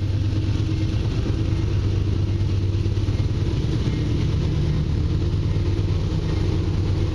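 Diesel locomotives of an approaching Canadian Pacific freight train running steadily, a low engine rumble with a deep, even hum. The lead units are GE AC4400CW diesels.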